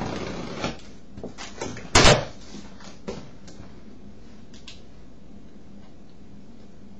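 Cardboard box flaps being pulled open: a short rustle, then a handful of knocks and scrapes, the loudest about two seconds in, with fainter taps afterwards.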